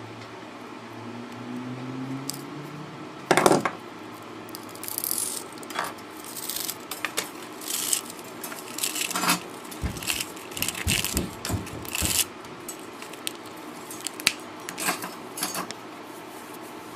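Small metal parts from a dismantled car stereo clinking and clattering as they are handled and dropped, with a loud knock about three seconds in.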